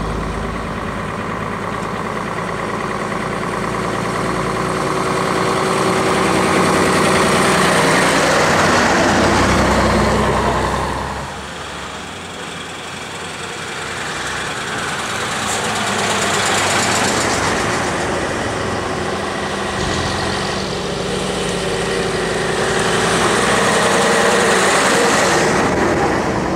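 Diesel engines of vintage half-cab single-deck buses running as the buses drive past one after another. The sound swells and fades three times, loudest about a third of the way in, again past halfway, and near the end.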